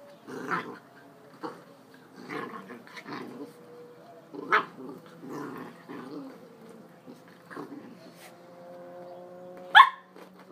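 Puppy growling and barking in short bursts, with two sharp yips standing out, one about four and a half seconds in and a louder one near the end.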